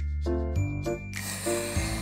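Background music: a melody of short notes over held bass notes. About a second in, a scraping noise joins it: a small knife cutting through a sheet of pink fondant.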